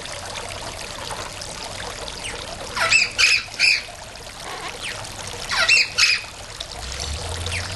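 Yellow-collared macaw giving two groups of three short, loud calls, about three seconds in and again about six seconds in, over a steady trickle of running water.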